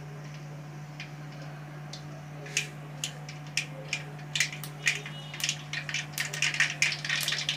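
Mustard seeds heating in hot oil in a kadai and starting to splutter: a few scattered sharp pops at first, then crackling more and more often from about two and a half seconds in, over a steady low hum.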